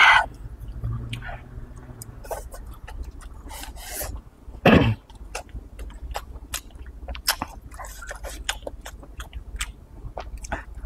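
Close-miked mouth sounds of a person eating stir-fried dried tofu strips with chopsticks: wet chewing, lip smacks and small clicks. Two short, louder noises stand out, one at the very start and one about five seconds in.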